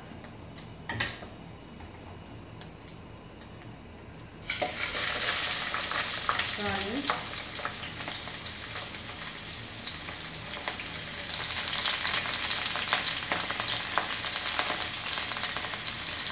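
Prawns and fish cake going into hot oil in a kadai. A loud sizzle starts suddenly about four seconds in and carries on steadily as they fry.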